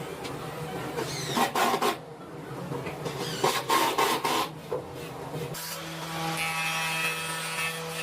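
Woodworking power saw running steadily, with two short bursts of cutting into timber about a second and a half and three and a half seconds in. After the cuts the motor keeps running free with a steadier, more tonal hum.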